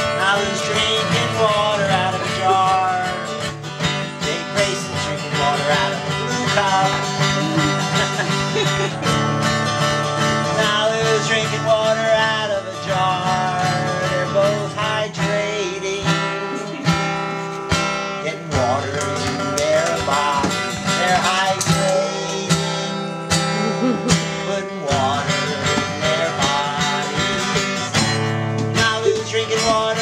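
Acoustic guitar music in a country style.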